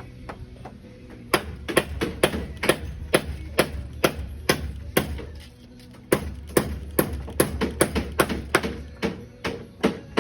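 A hammer striking repeatedly, about two blows a second, in two runs with a short pause about halfway through.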